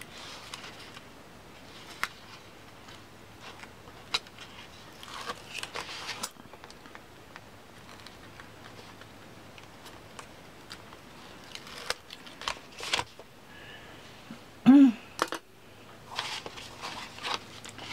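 Close handling of paper and tape: rustling, pressing and smoothing, with scattered light clicks and taps. A brief voice sound, the loudest moment, comes about three-quarters of the way through.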